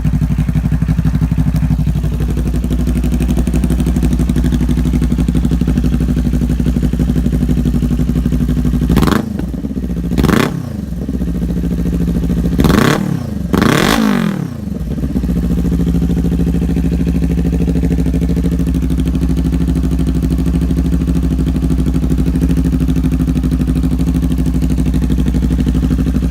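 Kawasaki Ninja 400 parallel-twin idling through a Musarri GP slip-on exhaust with its resonator (baffle) removed. About nine seconds in the throttle is blipped four times in quick succession, each rev rising and falling back, before it settles to a steady idle again.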